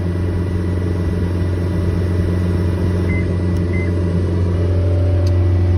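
John Deere 331G compact track loader's diesel engine running steadily at full throttle during auxiliary hydraulic calibration, heard from inside the cab, growing slightly louder. A few short high beeps come in a little after halfway and again at the end.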